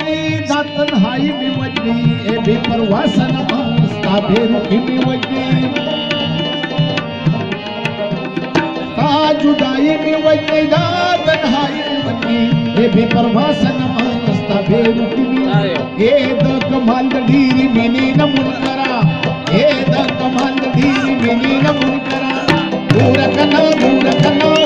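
Instrumental passage of Pashto folk music: a rabab plucked over sustained harmonium chords, with a steady, rhythmic percussive pulse.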